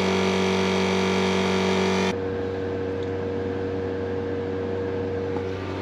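EZ-Flate C.A.S.E. dual air compressor running, a steady even hum as it airs up four tyres at once. About two seconds in the sound drops suddenly to a quieter steady hum.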